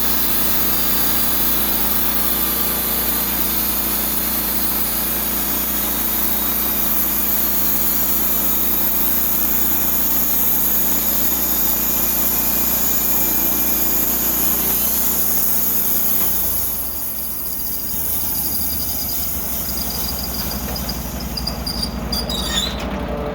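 Portable band sawmill running, its bandsaw blade cutting through a cedar log with the engine running steadily. About 16 seconds in the sound drops as the cut ends and the blade is disengaged; the engine keeps running, and a high whine stops near the end.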